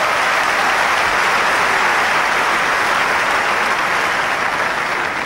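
Crowd applauding steadily, easing off a little near the end: a tennis crowd's applause for a game-winning ace.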